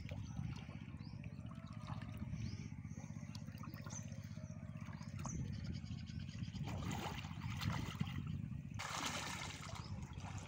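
Water trickling and splashing, with a louder splash about nine seconds in, over a steady low hum and faint bird chirps.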